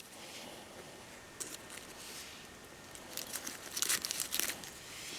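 Dry melaleuca paperbark tinder being crumpled and torn by hand, a soft crinkling with a few sharper tearing crackles about three to four seconds in.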